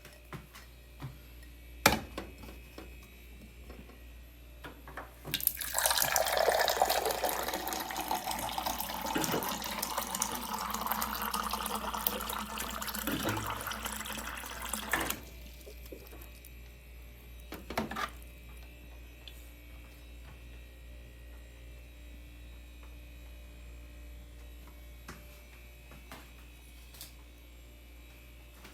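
Water running from a water cooler dispenser for about ten seconds, with a click a few seconds before and another after. A low steady hum sits underneath.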